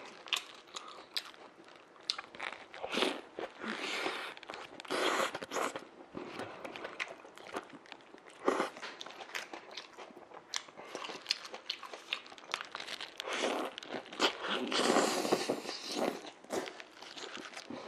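Biting and chewing a Subway sandwich with lettuce: irregular crunches as the bread and vegetables are bitten and chewed.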